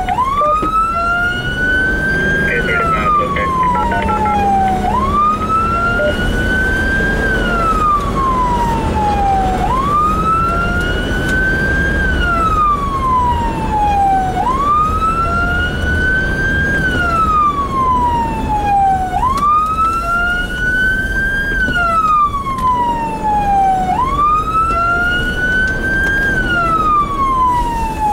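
Emergency vehicle siren in a slow wail, climbing and then sliding back down in pitch about every five seconds. It is heard from inside the responding vehicle's cab over a steady low road rumble.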